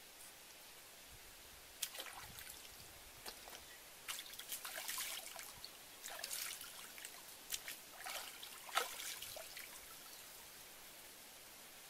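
Pond water splashing and dribbling as pieces of raw pork are rinsed by hand, in a run of irregular splashes that die away shortly before the end.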